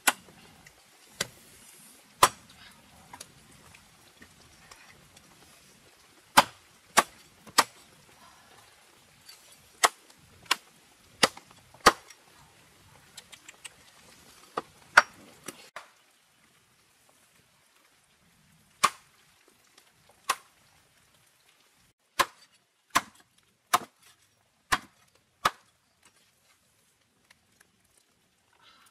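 A blade chopping into wood, struck about twenty times at an uneven pace, sometimes in quick runs of two or three. Faint background hiss drops away about sixteen seconds in, and the chops carry on over near silence.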